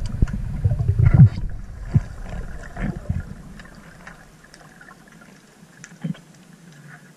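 Water rushing and churning around an underwater camera, loud for about the first three seconds and then fading to a quiet underwater hiss with scattered small clicks.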